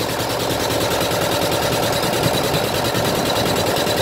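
A small engine idling steadily, with a fast, even beat.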